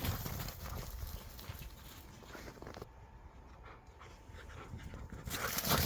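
Dogs panting and scuffling as they play-fight, with a louder scuffle near the end.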